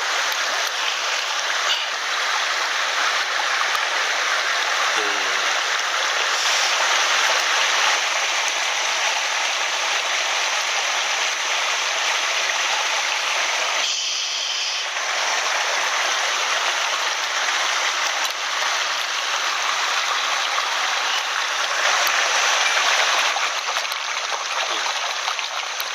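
Small mountain headwater stream flowing, a steady rush of water.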